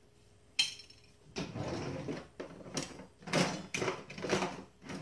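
A tin can of cream of chicken soup being worked open and its contents scraped out. There is a sharp click a little over half a second in, then a run of irregular metal grating and scraping strokes.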